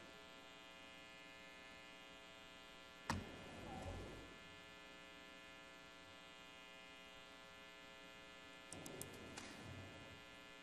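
Steady low electrical mains hum from an open microphone feed. A sharp click comes about three seconds in and is followed by faint rustling of papers on the desk, and a few smaller clicks with more paper rustling come near the end.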